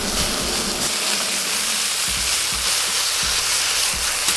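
Flank steak sizzling hard in oil and rendering fat in a very hot frying pan, a steady, spitting hiss as it is turned with tongs. A few soft low thuds come in the second half.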